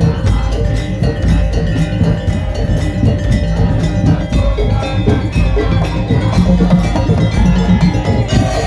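Madurese ul daul (tong-tong) ensemble playing: rapid, steady strokes on wooden slit drums and drums over a deep bass drum, with held pitched tones above.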